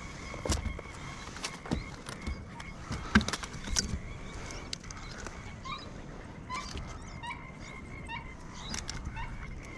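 Clicks and knocks of fishing gear being handled in a plastic kayak as a fish is taken out of the landing net, the loudest about three seconds in. In the second half a bird calls in a quick series of short chirps.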